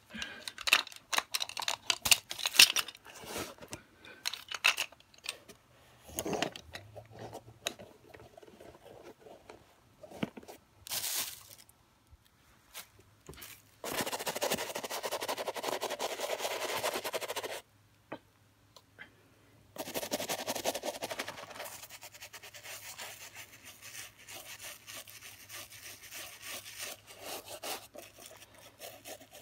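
A toothbrush scrubbing the leather upper of a white Nike Air Force 1 sneaker: rough brushing and scraping in several stretches with breaks between them, with clicky handling noise near the start.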